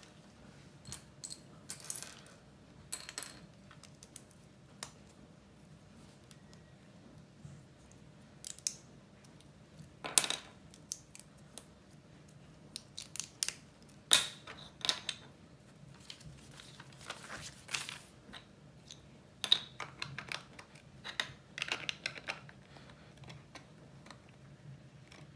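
Plastic Lego bricks clicking and rattling as they are handled on a wooden table and pressed together. The clicks are scattered and irregular, with a few sharper snaps.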